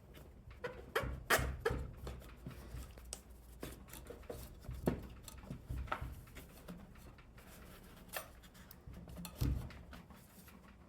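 Hands working on a push mower's fuel line and small parts: irregular clicks, taps and light knocks, with a dull thump near the end.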